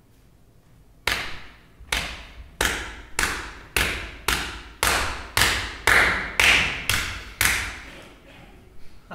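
About a dozen loud, sharp thumps or knocks, evenly spaced and coming slightly faster, each one ringing on in a reverberant hall.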